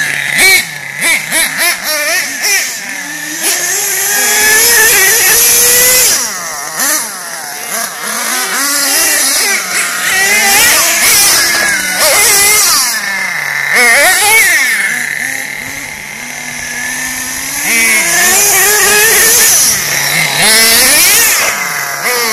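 Small nitro glow-fuel engines of radio-controlled monster trucks revving hard, their pitch climbing and falling again and again with the throttle. There are quick choppy throttle blips in the first two seconds.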